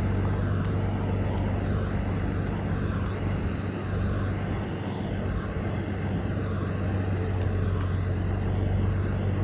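A large engine running steadily: an unbroken low drone with a rushing noise over it, dipping slightly in the middle.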